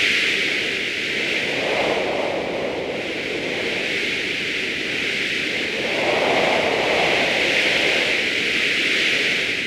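Synthesized tree-movement sound effect: a continuous rustling hiss of leaves and branches swaying in wind, swelling and easing in slow waves every few seconds.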